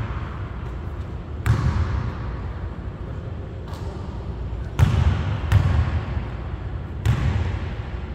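A basketball bouncing on a hardwood gym floor: four separate hits, each ringing out in the echo of the large hall.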